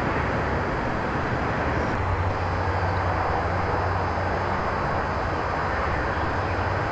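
Steady outdoor background noise with a low rumble that grows a little stronger about two seconds in.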